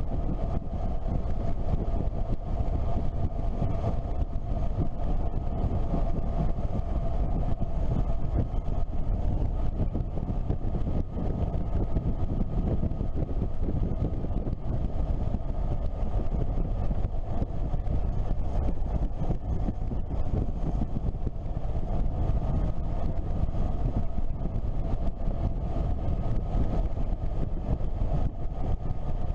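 Motorcycle cruising at a steady speed, its engine a faint steady drone under constant wind rush on the microphone.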